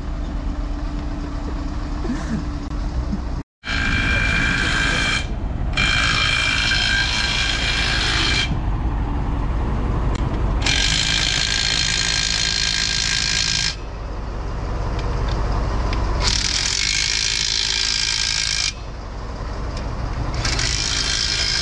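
Heavy machinery running steadily while a combine harvester is unloaded from a shipping container, with repeated spells of high metallic squealing lasting a few seconds each. The sound drops out briefly about three and a half seconds in.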